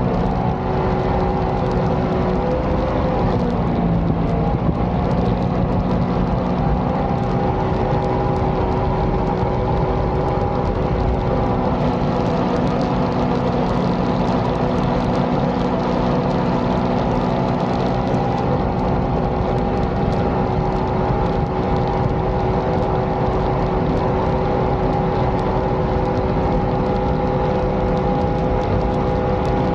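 Mini jet boat's supercharged engine running steadily under way, with water rushing along the hull; its pitch dips briefly about three seconds in, then holds steady.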